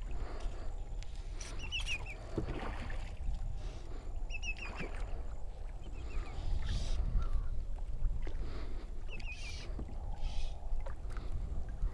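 Wind rumbling on the microphone, with a few soft knocks or splashes. Short runs of quick high chirps come a few times, about 2, 4.5 and 9 seconds in.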